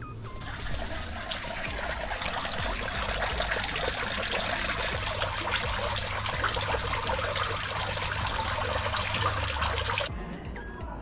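A small fountain's water splashing and trickling into a stone goldfish pond: a steady, dense spatter that cuts off abruptly near the end.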